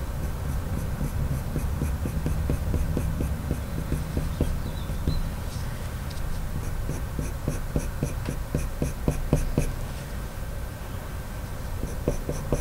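Coloured pencil scratching on drawing paper in quick, short flicked strokes, several a second, as small fur lines are drawn.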